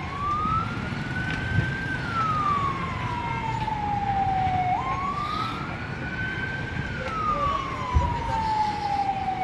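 Emergency vehicle siren wailing: the tone jumps up abruptly, climbs a little higher, then glides slowly down, in a cycle of about five seconds that repeats twice, over a steady low rumble.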